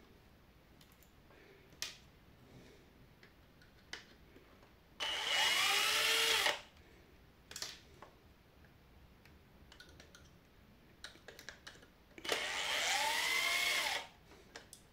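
Cordless drill-driver unscrewing the small screws that hold a circuit board. It makes two short runs of about a second and a half each, the motor whine rising and then falling, with a few faint handling clicks between.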